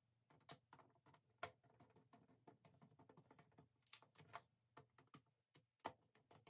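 Faint, irregular clicks and ticks of a small hand screwdriver driving screws into the plastic underside of an Ooler control unit.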